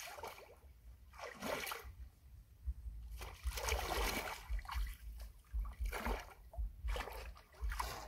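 Feet wading through shallow muddy river water: a series of irregular splashes and sloshes with short pauses between them.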